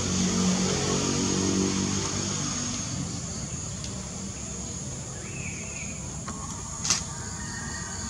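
A motor vehicle engine runs and fades away over the first three seconds, leaving a steady high-pitched insect drone. A bird gives a couple of short chirps about five seconds in, and a single sharp click sounds near seven seconds.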